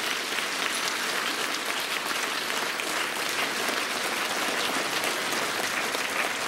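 Applause: many people clapping together in a steady, dense patter, with the costumed ensemble members on stage joining in.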